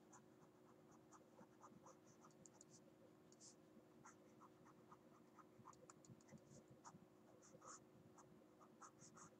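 Faint, irregular taps and scratches of a stylus writing on a tablet screen, over a low steady hum.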